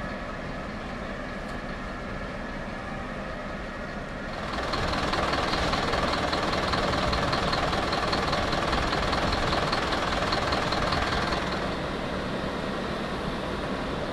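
Fire engine running steadily under a rushing noise that swells about four seconds in and eases off near the end.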